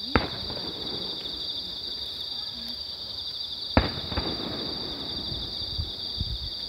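Two sharp firework bangs about three and a half seconds apart, each followed by a rolling echo, with a smaller crack just after the second. Under them, insects chirp in a steady high pulsing trill.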